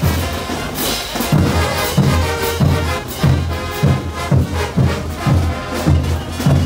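Large Bolivian street brass band playing on the march: trumpets, trombones and tubas over bass drums beating about every two-thirds of a second, with snare drums and crashing hand cymbals.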